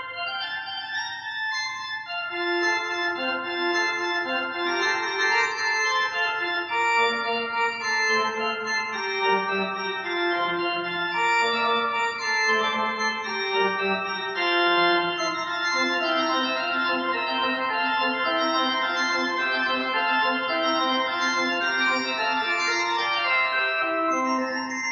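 Background music: slow, sustained keyboard notes and chords with an organ sound, the melody moving from one held note to the next.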